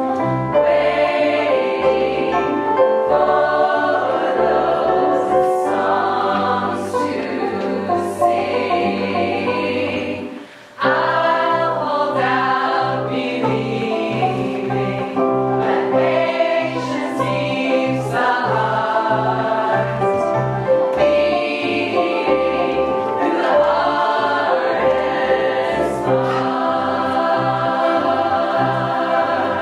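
A choir singing with musical backing over a steady pulsing bass. Everything cuts out for about half a second, roughly ten seconds in, then comes back in together.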